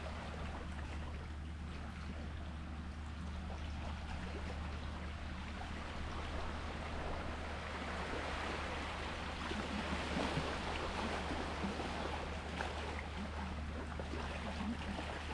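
Sea water lapping and splashing in small wavelets, a steady wash full of little splashes and trickles, swelling slightly about two-thirds of the way through, over a constant low rumble.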